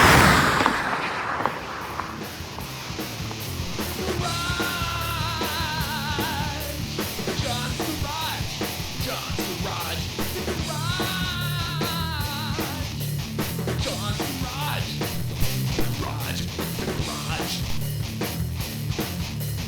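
Hard rock music with a steady beat and wavering melody lines, heard twice, about four seconds in and again about eleven seconds in. It opens on the loud peak of a rising whoosh.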